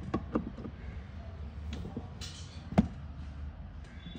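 Scattered clicks and knocks of a screwdriver working screws into the hard plastic seat back of a children's ride-on car, with a short scrape just after two seconds and the loudest knock a little under three seconds in.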